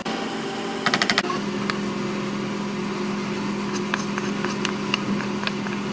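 A wooden spatula clattering against a steel pan of cooked noodles: a quick run of sharp clicks about a second in, then a few lighter ticks, over a steady low hum.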